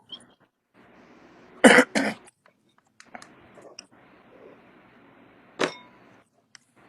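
A person coughing twice in quick succession, followed a few seconds later by one shorter, sharp sound.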